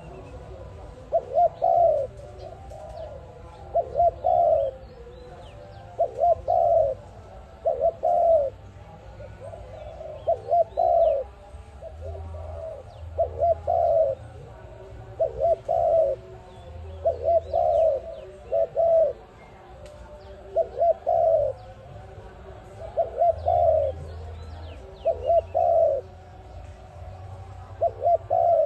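Dove cooing in a steady repeating phrase, a couple of short notes and then a longer one, about every two and a half seconds. Other small birds chirp faintly in the background.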